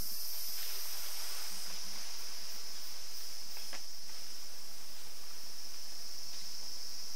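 Steady, high-pitched chorus of forest insects, an unbroken shrill with a higher hiss over it that fades out about two seconds in. A couple of faint brief rustles or clicks come through underneath.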